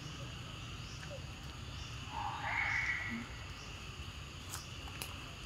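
Steady chorus of insects such as crickets or cicadas. A single short, higher-pitched call stands out about two seconds in.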